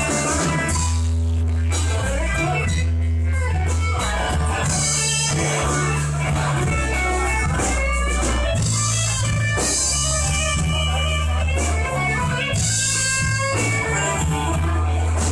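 Slow blues played by a band in an instrumental passage, with electric guitar over a bass guitar line.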